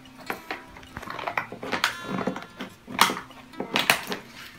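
Plastic toy-makeup packaging being cut open with scissors and handled, a run of irregular sharp crackles and snips, over soft background music.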